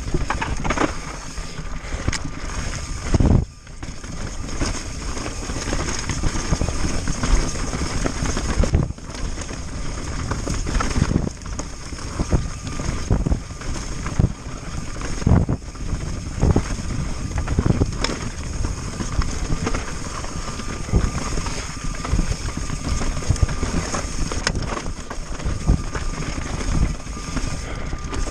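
Pivot Firebird 29 mountain bike rolling fast down a rocky trail: tyres crunching over loose rock, the bike rattling, and irregular sharp knocks as it hits rocks, with wind rushing over the microphone.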